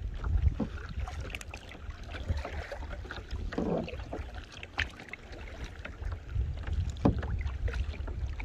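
Kayak paddle strokes splashing and dripping in the water, with wind rumbling on the microphone and a few sharp knocks.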